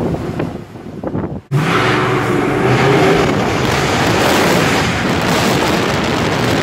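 Mercedes C63 AMG's 6.3-litre naturally aspirated V8 under power inside an underground car park, quieter at first, then loud and sustained from about one and a half seconds in after a sudden break.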